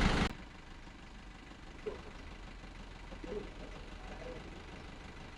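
A voice cuts off sharply just after the start. A low, steady rumble follows, with faint distant voices now and then.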